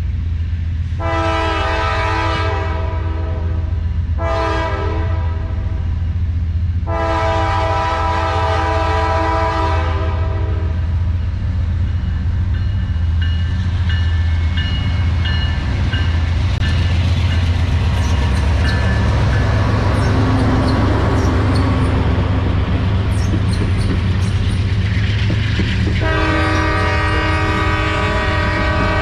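Diesel-hauled freight train approaching and passing close by. Its locomotive air horn sounds three blasts, the middle one short, over a steady low engine rumble. Then wheels and covered hopper cars rattle and clatter past on the rails, and the horn sounds again near the end.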